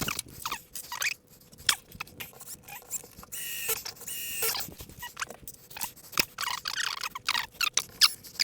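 Screws and metal hanging brackets being worked on a kitchen wall cabinet: irregular clicks and scrapes with short high squeaks.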